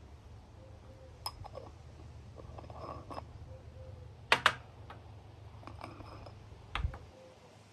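Small glass spice jar being handled: a few sharp clicks and taps, the loudest a quick pair a little past halfway, with a soft rustle shortly before them.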